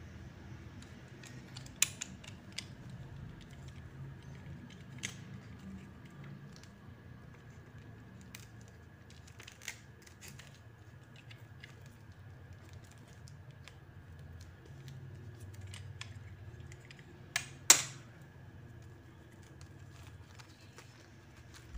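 A snap-off utility knife scratching and picking at the plastic shrink-wrap seal of a boxed book set, with scattered small clicks and crinkles of plastic as the box is turned in the hands. There is a sharper click about two seconds in and a louder pair of clicks near the end.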